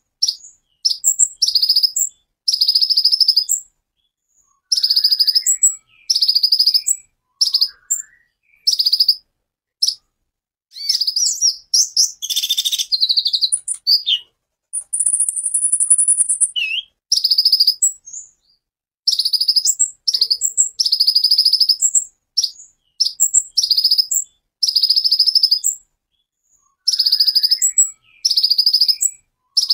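Male Van Hasselt's sunbird (kolibri ninja) in full song: high-pitched bursts of rapid, sharp notes, each lasting about half a second to a second, repeated again and again with short pauses between. These are the fast stuttering 'tembakan' (shooting) phrases that Indonesian bird-keepers prize.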